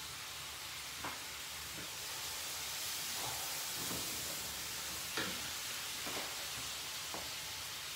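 Sauce sizzling steadily in a frying pan, with a few light knocks as a wooden spatula stirs it.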